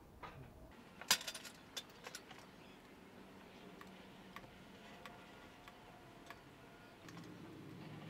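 Faint clicks and clacks of a caulking gun being picked up and its trigger squeezed while a bead of construction adhesive is run along a foam wall edge, with a cluster of louder clicks about a second in and single clicks after. A low steady hum rises near the end.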